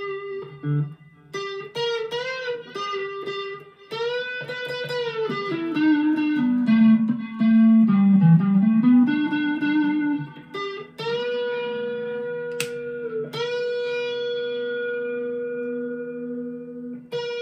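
Epiphone Les Paul Modern Figured electric guitar played through an amp: single-note lead lines with string bends and vibrato, a run that falls and climbs again, then one long sustained note held for about the last six seconds.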